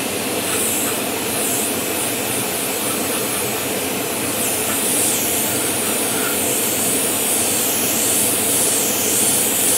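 Airbrush spraying primer: a steady hiss of compressed air, its highest part wavering up and down.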